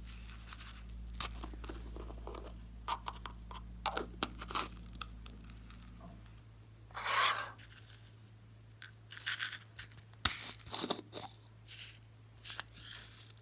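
Slime being mixed and squished: irregular crunchy crackles and squelches in short bursts, the longest about halfway through.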